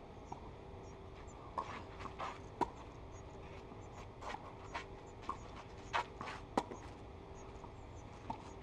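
Tennis rally on a clay court: sharp pops of rackets striking the ball, the two loudest about four seconds apart, among softer knocks and scuffs of bounces and footsteps on the clay.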